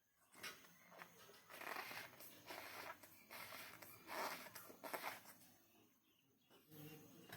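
Faint handling noises: a few short bursts of scraping and rubbing.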